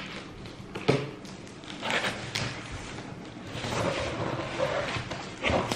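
A cardboard shipping box being handled on a wooden table: a few light knocks, then rustling and scraping, and another knock near the end.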